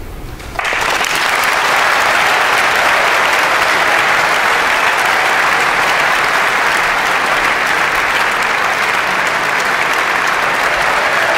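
Audience applauding a finished choral performance, breaking out suddenly about half a second in and continuing steadily.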